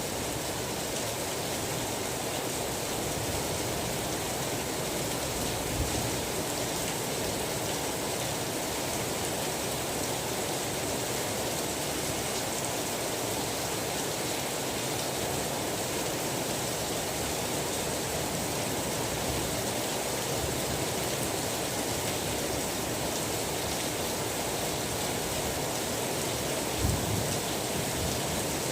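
Steady rain falling with an even hiss, and two brief low thumps, one about six seconds in and one near the end.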